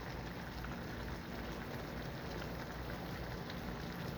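A skillet of pork, rice and asparagus in broth simmering on the stove: a steady bubbling hiss with small scattered pops.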